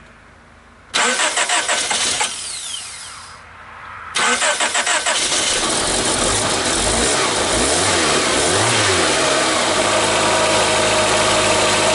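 Honda Accord F22B1 2.2-litre four-cylinder being started after a head gasket replacement. The starter cranks it briefly about a second in, then cranks again at about four seconds, and the engine catches, revs up and down, and settles into a steady idle.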